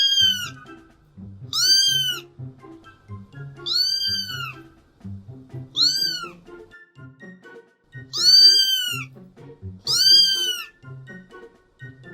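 A cat meowing over and over, about every two seconds, each meow rising and then falling in pitch, with background music beneath.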